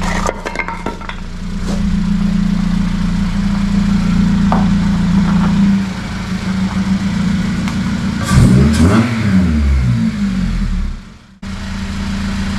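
Honda Civic FN2 Type R's four-cylinder engine running at a steady idle, with a few quick rises and falls in pitch about eight seconds in. The sound drops out abruptly for a moment near the end, then the idle resumes.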